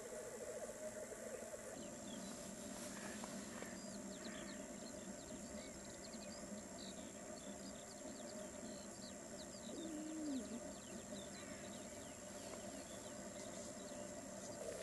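Chorus of male black grouse bubbling (rookooing) at a lek: a continuous low, warbling cooing from several birds at once.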